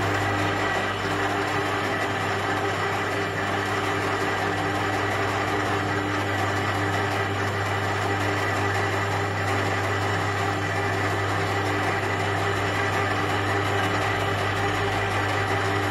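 Electric-motor drive of a chain-driven profile pipe bender running steadily with an even electric hum, turning the rollers as a steel profile tube is rolled into an arc.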